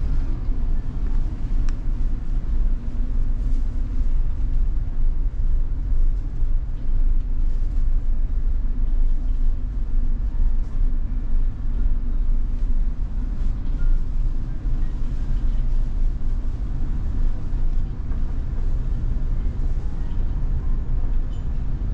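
Steady low rumble of the ferry's engines and hull, heard inside the ship.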